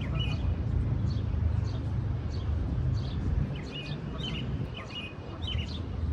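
Small birds chirping over and over, in short repeated notes, over a steady low rumble.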